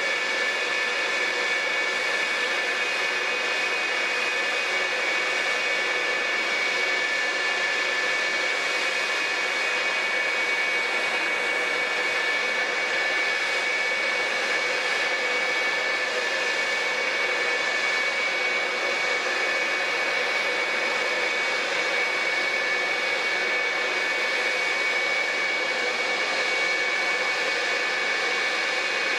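F-4EJ Phantom II's twin J79 turbojets idling on the ground: a steady high-pitched whine over a constant rush of jet noise, unchanging throughout.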